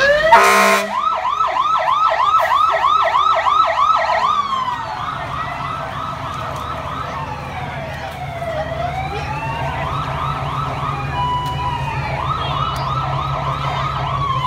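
Parade fire truck sirens: a short, loud horn blast right at the start, then an electronic siren in a fast yelp of about three to four sweeps a second, changing after about four seconds into a slower rising and falling wail. A second siren overlaps the wail, a fast yelp returns near the end, and a low engine rumble runs underneath.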